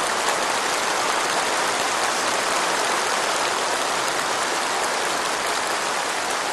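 A large crowd applauding, a dense, steady clapping.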